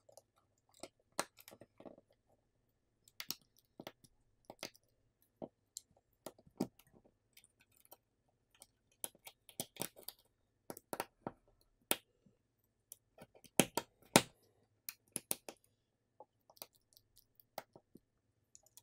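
Small, irregular clicks and taps of a Xiaomi Poco X6 smartphone being reassembled by hand: its parts and flex-cable connectors pressed and snapped into place on the board and midframe.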